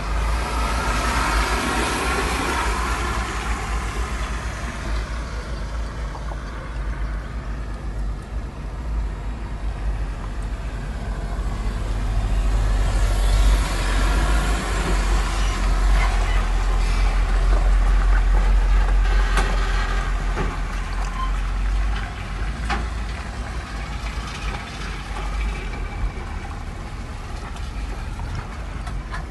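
Low rumble of a car driving slowly over a rough, potholed, waterlogged dirt road, heard from inside the cabin, with heavy trucks passing close alongside. The rumble grows louder around the middle.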